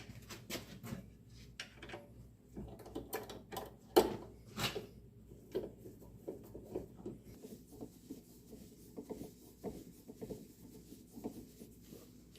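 Irregular clicks, knocks and light scraping of tools and wooden parts being handled at a drill press, with one sharper knock about four seconds in. A faint low hum lies under it and stops about halfway through.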